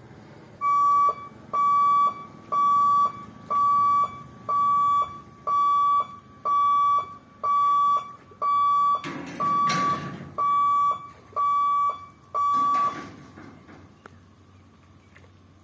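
Level-crossing warning buzzer sounding as the boom barriers lower: a single high beep repeated about once a second, thirteen times, then stopping.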